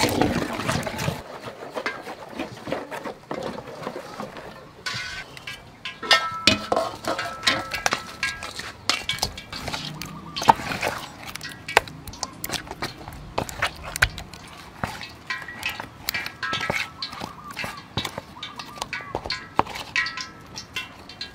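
Raw fish slices being stirred through thick batter in a metal bowl: wet squelching with many quick clicks and the odd clink against the bowl.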